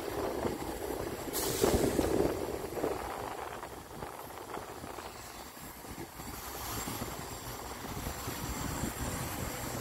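Rumble of city street traffic, loudest in the first couple of seconds, with a short hiss about a second and a half in.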